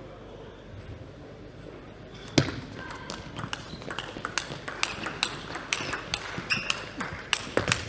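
Table tennis ball clicking sharply off paddles and table in a rally, about two to three hits a second, starting about two and a half seconds in after a quiet serve preparation.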